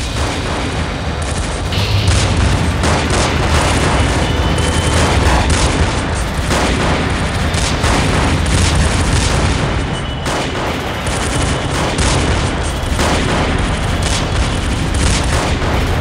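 Movie-style automatic gunfire: several rifles firing together in one long, unbroken fusillade, with a heavy low rumble under the shots.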